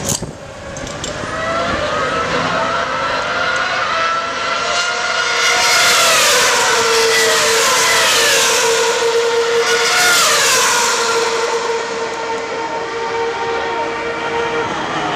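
Formula One car engines running past in the pit lane, their high-pitched notes rising and then falling away as cars go by, twice clearly, with one steady engine note held for several seconds in the middle.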